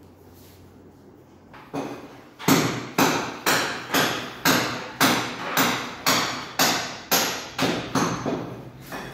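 Steady hammering: a single blow about two seconds in, then a regular run of a dozen or so sharp blows at about two a second, each dying away briefly.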